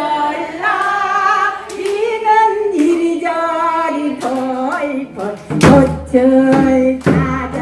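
A woman singing long held notes into a microphone. About five and a half seconds in, janggu (Korean hourglass drum) strokes join her.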